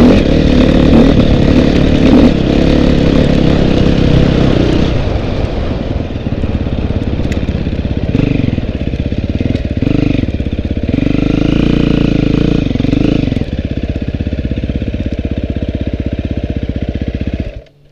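Dirt bike engine running hard up a rough climb, then revving up and down in swells before settling to a lower, steadier note. It stops abruptly near the end.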